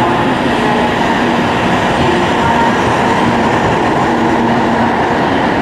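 N700A Shinkansen train pulling out of the station, its cars rolling steadily past close by: a continuous rumble of wheels on rail with a faint hum.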